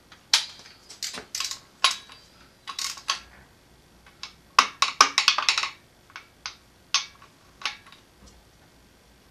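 Socket ratchet clicking and metal parts clinking as the timing-belt tensioner bolts are run in on a Subaru engine block. A quick run of clicks comes about halfway through, and it goes quiet about a second before the end.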